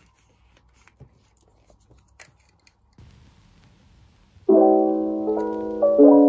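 Faint scattered clicks from photocards being handled in plastic binder sleeves. About four and a half seconds in, lo-fi background music starts abruptly, with held keyboard chords changing every second or so.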